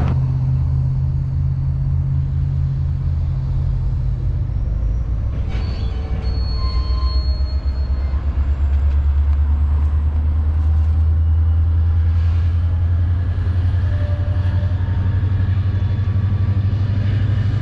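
EMD SD40-2XR diesel locomotive's 16-cylinder two-stroke engine running loud and steady while switching cars; its low drone grows fuller about eight seconds in. A brief high-pitched wheel squeal comes about six seconds in.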